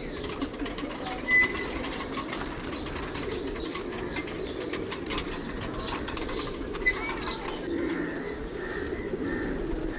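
Birds calling, with short high chirps scattered throughout over a steady lower fluttering sound.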